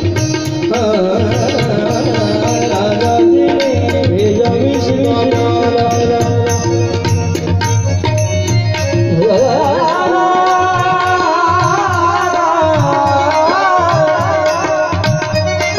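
Indian-style music: a held drone and hand-drum rhythm under an ornamented, wavering melody, with a new melodic line sliding in about nine seconds in.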